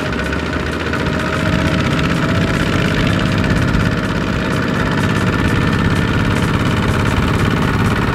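Single-cylinder diesel engine of a two-wheel walking tractor chugging steadily as it hauls a loaded rice trailer, its wheels clogged with sticky mud. It gets a little louder about a second and a half in.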